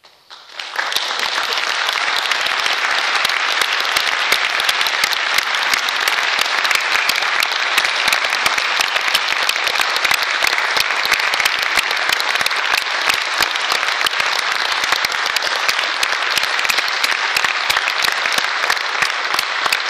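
Audience applauding: dense clapping that breaks out suddenly, builds within about a second and then holds steady and loud.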